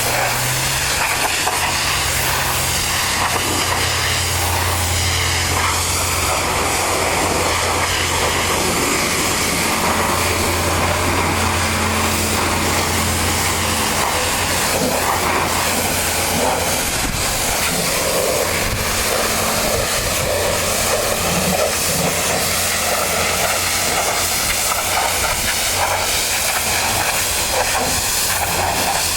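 Pressure washer spraying: a steady hiss of the water jet, with a low hum from the machine underneath that fades about 14 seconds in.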